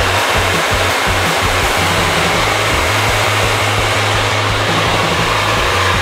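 Handheld hair dryer running steadily, an even rushing of air over a low motor hum, held close and moved over the hair.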